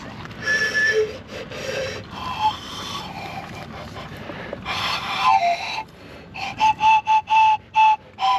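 Whistle-like notes: a few scattered tones, a falling note about five seconds in, then a quick run of short repeated notes at one pitch, about three a second, over the last couple of seconds.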